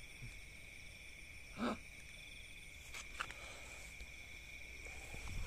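Night insects, crickets among them, chirring steadily in several high, unbroken tones, with one short voice-like sound about one and a half seconds in.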